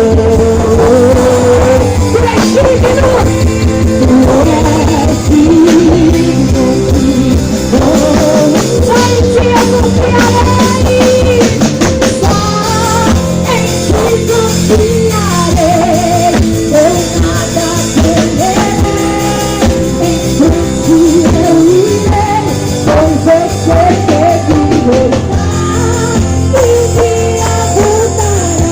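Live gospel worship band playing: a lead vocalist singing over drum kit, bass and guitar, loud and amplified.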